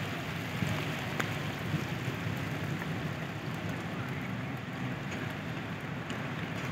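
Heavy rain falling steadily, a constant hiss with scattered small drop clicks, over a steady low rumble.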